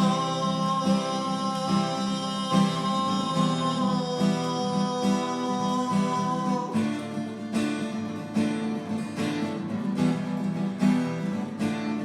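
Acoustic guitar strumming a steady rhythm, with a voice holding one long sung note that ends a little past halfway; then the guitar goes on alone as an instrumental break in the song.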